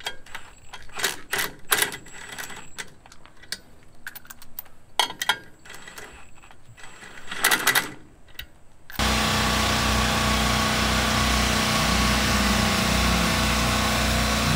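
Scattered metal clicks and clinks of lug nuts being threaded by hand onto a pickup's wheel studs. About nine seconds in it cuts abruptly to a loud, steady drone of a generator and a chainsaw running in the background.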